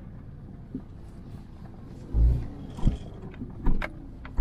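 Old Mazda's engine running with its broken catalytic converter removed, heard from inside the cabin while driving on a rough gravel track. Several heavy thumps come in the second half, the first, about two seconds in, the loudest.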